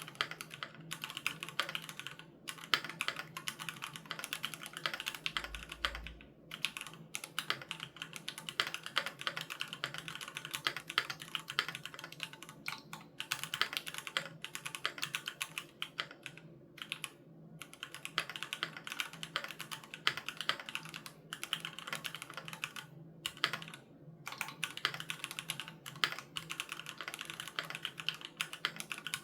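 Steady typing on a Keychron Q3 Knob mechanical keyboard with Gateron G Pro Red linear switches: rapid key clicks, broken by a few brief pauses.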